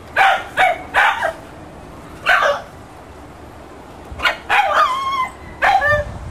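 New Guinea singing dogs vocalising: a few short, sharp yelps, then from about four seconds in pitched calls that slide up in pitch and hold, the beginnings of the breed's wolf-like howl.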